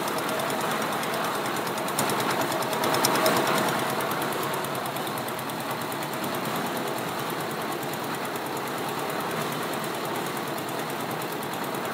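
Concrete mixer's single-cylinder diesel engine running steadily with a fast, even knocking beat, belt-driving the mixer.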